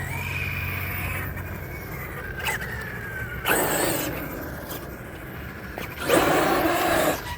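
Remote-control truck's electric motor whining, its pitch easing slowly down, then two loud bursts of tyres scraping and skidding on the ground, one near the middle and one near the end.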